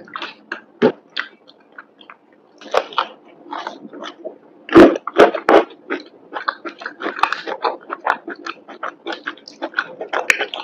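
Close-miked chewing of creamy penne pasta: wet, irregular mouth clicks and smacks, with a cluster of sharper clicks about halfway through.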